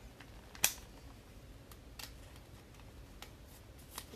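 A few sparse, light clicks and taps, the sharpest about half a second in, from trading cards and hard plastic top loaders being handled.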